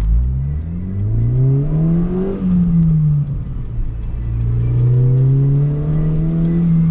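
Honda Fit's 1.5-litre four-cylinder engine, heard from inside the cabin, revving hard up through a gear with short final drive gears, dropping in pitch at a shift about two and a half seconds in, then pulling up more gradually through the next gear before easing off near the end.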